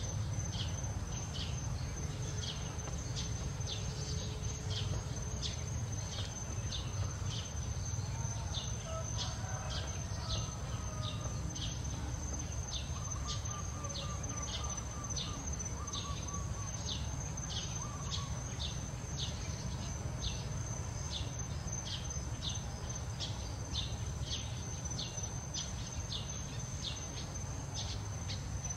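Insects calling steadily: a continuous high whine with a rhythmic chirp repeating about twice a second, over a steady low rumble. A few faint bird calls come in around the middle.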